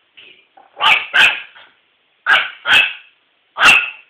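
A dog barking: five loud barks, two quick pairs and then a single one.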